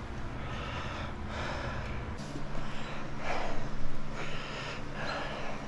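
A man breathing hard with effort, about half a dozen heavy breaths in and out, the loudest a little past the middle, as he strains to lever a tire off its rim.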